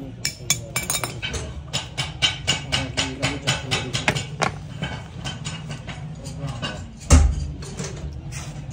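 Hand hammer striking metal on a steel anvil block: quick, light blows about three to four a second that thin out after about four seconds, then one heavy, low thud about seven seconds in.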